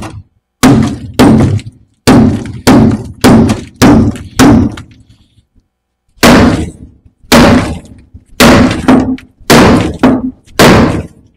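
Hammer blows on the end of a seized rear trailing-arm bolt, metal on metal, each strike ringing briefly. About fifteen blows, roughly two a second, in two runs with a short pause in the middle; the bolt will not shift.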